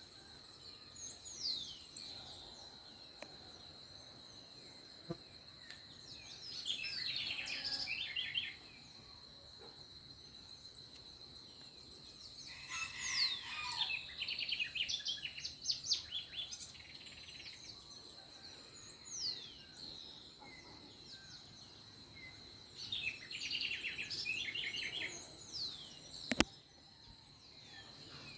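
Dawn chorus of several birds: bursts of rapid chirps and trills and short downward-sliding whistles coming and going, over a steady high insect tone. A single sharp click sounds near the end.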